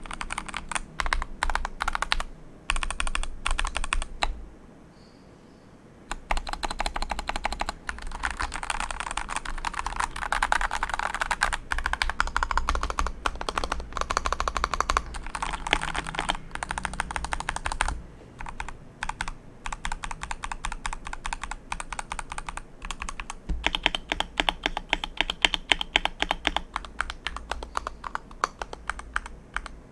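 Vortex M0110 mechanical keyboard with Gateron G Yellow Pro linear switches being typed on, a rapid run of key clicks in bursts, with a short pause about four seconds in.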